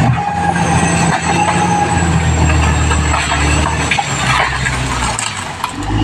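Caterpillar D6R XL bulldozer's diesel engine running under load, with its steel crawler tracks squealing and clanking as it moves. The engine note drops off briefly near the end, then comes back.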